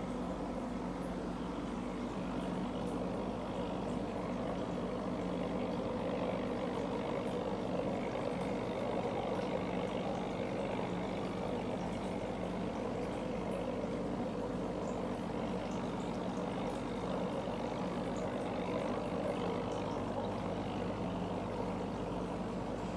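Aquarium air pump humming steadily, with air bubbling up through the tank water.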